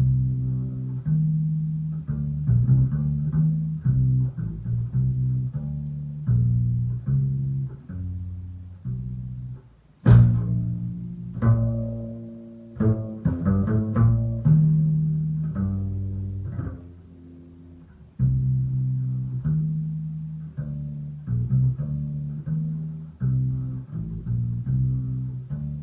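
Solo double bass played pizzicato: a line of plucked low notes, each ringing and dying away. About ten seconds in comes a sharp percussive strike, followed by a quicker run of notes.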